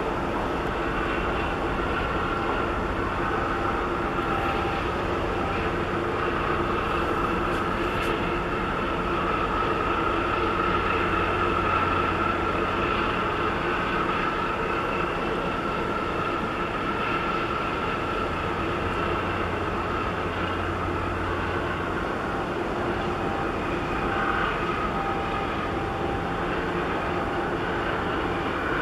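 Steady drone of ships' diesel machinery, from the tugboat working against the container ship's hull and the ship itself, with a steady whine running through it. A deep hum swells from about 8 s to about 22 s.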